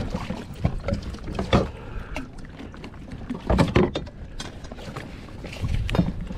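Irregular knocks and thumps on the kayak as a freshly landed California halibut and the fishing gear are handled on the angler's lap, the loudest cluster a little past the middle.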